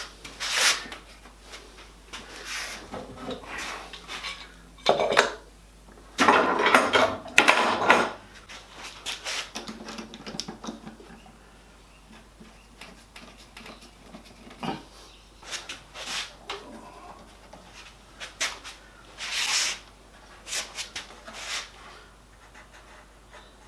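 Irregular knocks, clatter and short scrapes of wooden pieces and tools being handled on a workbench, as a glued-in wooden packer is worked out from under new edging. A busier run of clattering comes about six to eight seconds in, with scattered taps after it.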